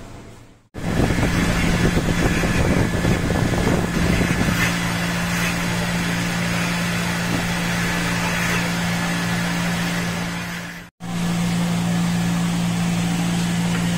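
Steady machine hum with a low, even drone under a wash of noise. Rough scrubbing and splashing noise sits on top for the first few seconds. The sound starts abruptly and breaks off for an instant near the end.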